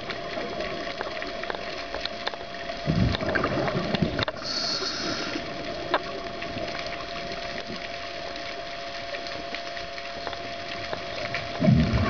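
Scuba diver breathing through a regulator underwater. A gush of exhaled bubbles comes about three seconds in, a hissing inhale just after four seconds, and another burst of bubbles near the end, over a steady hum.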